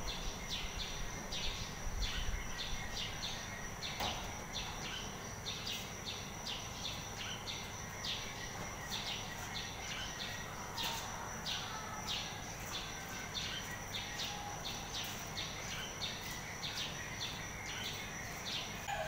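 Steady background chirping: a constant high-pitched drone with short chirps repeating about twice a second.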